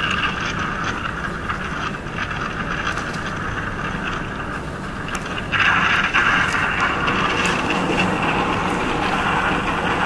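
The grunting sound of sulfuric acid as sodium hydroxide is added to it in a beaker: a continuous rushing, rumbling noise that grows louder and brighter about five and a half seconds in.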